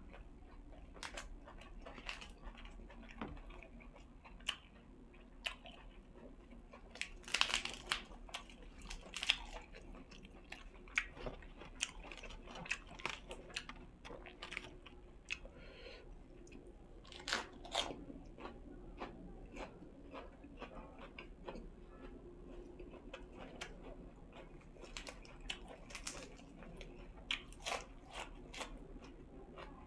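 A person chewing and biting into crunchy food, with irregular sharp crunches that come in bunches every several seconds.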